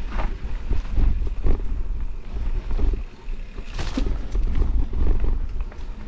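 A mountain bike ridden fast down a rough dirt singletrack: a constant low rumble of wind on the microphone and tyres on the ground, with irregular rattles and knocks from the bike over roots and bumps. The sharpest knock comes about two thirds of the way in.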